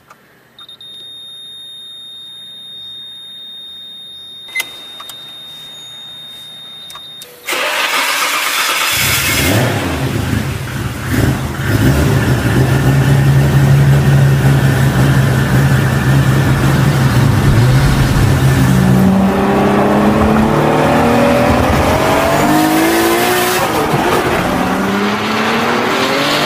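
A thin, steady high beep, then a Nissan Skyline GT-R's twin-turbo straight-six starting with a sudden loud burst about seven seconds in and running steadily. In the last third it revs up several times in rising sweeps as the car accelerates.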